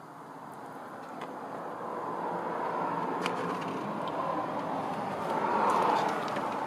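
A passing road vehicle: a rushing noise that builds steadily and peaks about six seconds in, with a few faint clicks over it.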